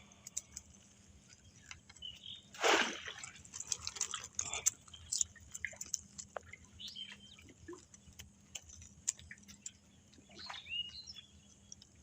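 Water splashing and dripping, with scattered small clicks and knocks, as the catch is handled out of a bamboo fish trap. There is a louder splash about three seconds in, and a short chirp near the end.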